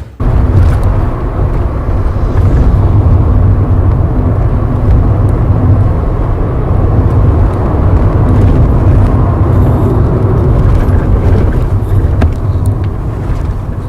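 VW Polo Sedan cabin with a steady low road and tyre rumble while driving over rough asphalt, and a few faint knocks and rattles from the chassis. The owner takes the rubbery rattle for a worn automatic gearbox mount, with the steering rack and strut mounts suspected for the dull knocks.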